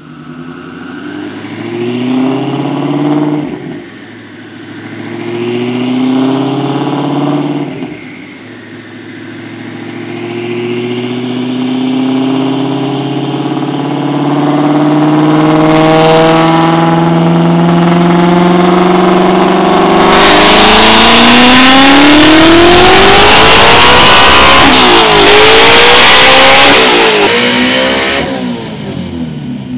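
Twin-turbocharged Shelby GT350R's 5.2-litre flat-plane-crank V8 on a chassis dyno: two short revs, then a long pull in gear whose pitch climbs slowly. About two-thirds of the way through it gets much louder and harsher as the revs climb faster, then it drops off near the end.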